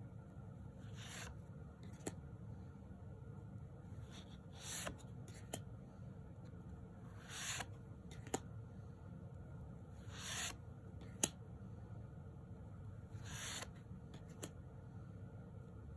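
Tarot cards being flipped one at a time: a short papery swish as each card slides off the front of the deck, five times at roughly three-second intervals, each followed by a light click.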